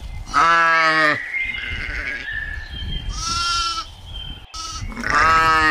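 Sheep bleating: three separate calls, each under a second long, about a second in, in the middle and near the end.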